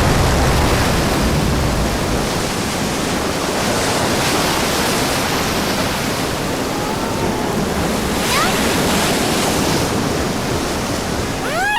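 Steady, loud rush of pouring water, as from rain flooding in through a broken ceiling. A couple of faint, short rising squeaks sound a little past the middle.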